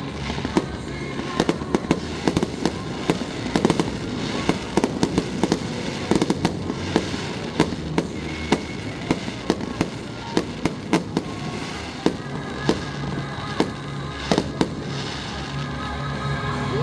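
Fireworks display: shells bursting in a rapid, irregular run of sharp bangs, with music playing underneath.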